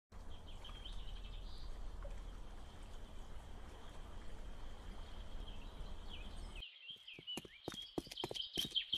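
Outdoor river ambience: running water with a low rumble and birds chirping. About two-thirds of the way through, the water rumble cuts out suddenly. A series of sharp clicks and knocks then starts under the continuing birdsong.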